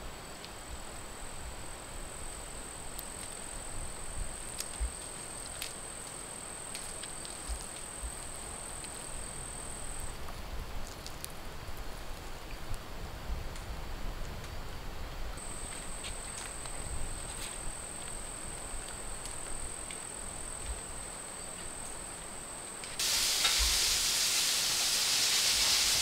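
A night insect's steady, high-pitched continuous trill, breaking off for about five seconds midway, with faint scattered clicks beneath. About three seconds before the end a loud, even hiss sets in suddenly.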